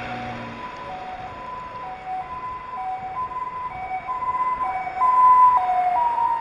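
Two-tone emergency-vehicle siren alternating between a high and a low note about twice a second. It grows louder to a peak about five seconds in, then drops slightly in pitch as it passes.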